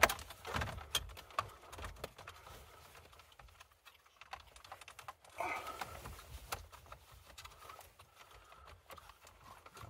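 Irregular plastic clicks, taps and scrapes from the Opel Insignia's dashboard trim as hands pull and pry at its clips to free the display panel, with a sharp click at the start.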